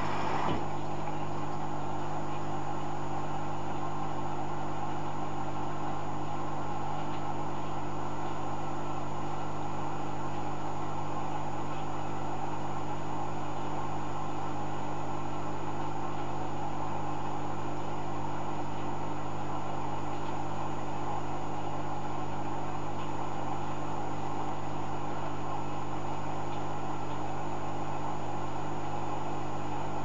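Hoover Dynamic Next front-loading washing machine running with a steady, unbroken hum and hiss.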